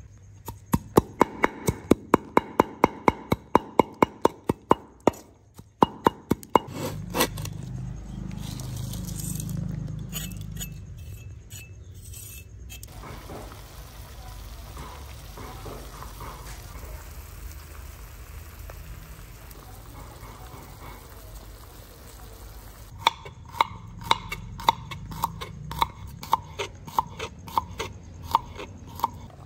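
Cleaver chopping red chillies on a wooden board, quick even chops about four a second, then a pot of duck eggs simmering over a charcoal grill, a steady low noise. Near the end a knife slices garlic cloves on the board, about two cuts a second.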